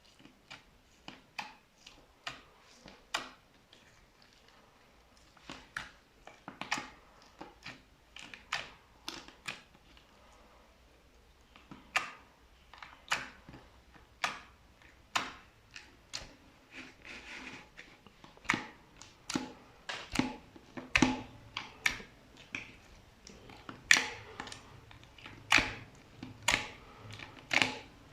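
Slime being pressed, with small white pearl beads worked into it, making a string of sharp sticky pops and clicks, about one or two a second. The pops grow louder and come closer together about halfway through.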